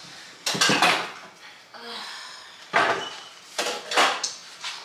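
Metal pots and pans clanking and knocking as cookware is handled and set on a gas stove, in three bursts of clatter.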